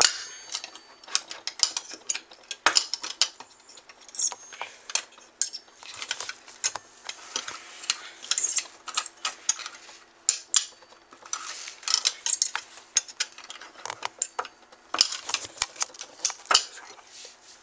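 Small metal parts inside a hard drive being pried and popped out: scattered sharp clicks and light metallic clinks, coming in clusters.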